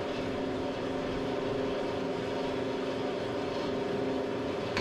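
A steady mechanical drone with a constant low hum, without knocks or clicks.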